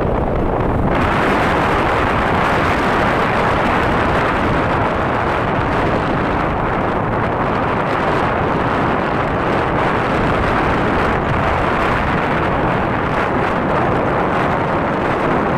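Steady wind buffeting on the microphone of a moving motorcycle, blending with the engine and tyre noise into one even, unbroken rumble.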